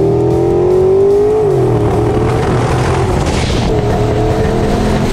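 Turbocharged LS V8 drag car at full throttle: the engine note climbs steadily, then falls away about a second and a half in and runs on flatter and rougher, on a pull that the driver says ran into the boost safety. A brief hiss comes near the end.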